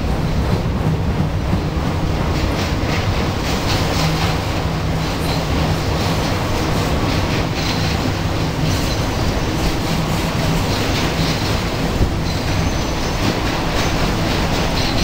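Freight train of autorack cars rolling past, a steady rumble of steel wheels on rail with repeated clacking over the rail joints.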